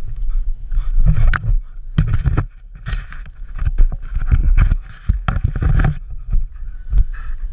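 Rubbing, knocking and thumping from a GoPro strapped to a dog as it tugs on a chew toy and moves about, with irregular bumps throughout and a rumble of mount noise.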